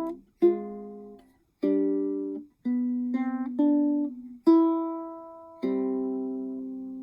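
PCH ukulele played fingerstyle: plucked chords and short runs of single notes, each ringing out and fading, with brief pauses between phrases.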